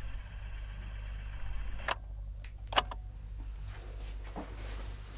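A steady low hum of room tone, broken by a few short sharp clicks about two seconds in and just before three seconds, the last the loudest.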